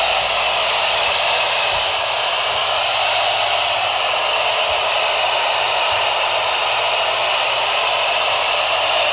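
Steady hiss of radio static from a receiver that is picking up no clear signal, even and unchanging throughout.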